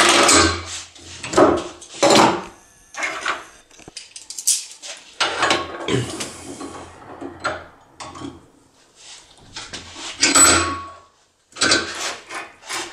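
Irregular metal knocks, clunks and scrapes as a euro lock cylinder is handled and set into a steel bench vise.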